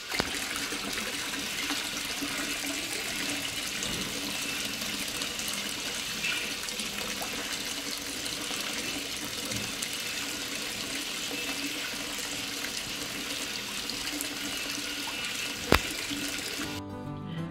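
Steady rushing, splashing water, with one sharp click near the end.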